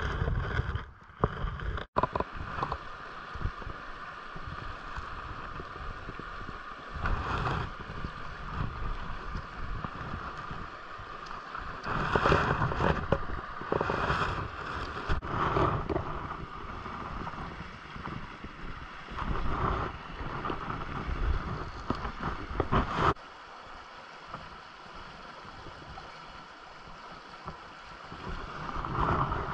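River water running over shallow riffles, with wind gusting against the microphone in rumbling surges. The sound changes abruptly several times.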